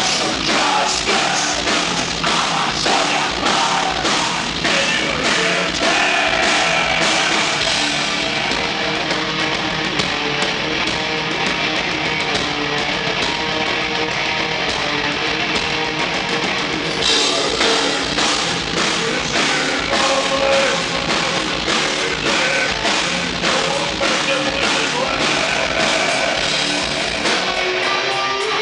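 Heavy metal band playing live: distorted electric guitar over a steady drum kit beat.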